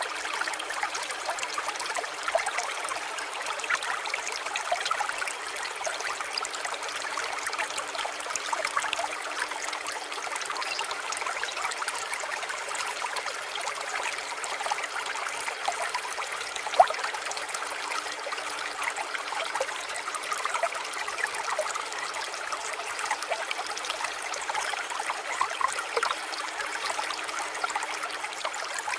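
Water trickling and babbling steadily, a small stream or garden water feature flowing without pause.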